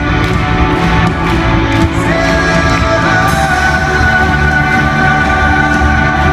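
Rock band playing live, with drums and amplified guitars. A long held note comes in about two seconds in.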